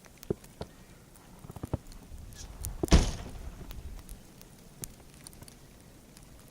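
Footsteps crunching in deep, powdery snow: scattered light crunches and clicks, with one heavy thump about three seconds in.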